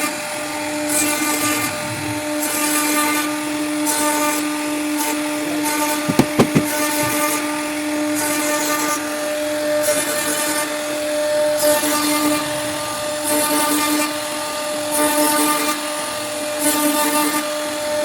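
CNC router spindle running with a steady whine while the bit cuts wood, with a hiss of cutting that swells and fades about once a second as it works along the carving. A short cluster of knocks comes about six seconds in.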